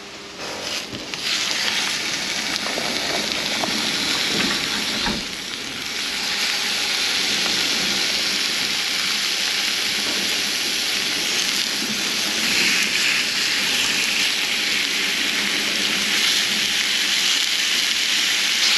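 Fish fillets frying in a hot pan with onions and capers: a steady sizzle that sets in about a second in, with a short lull around five seconds.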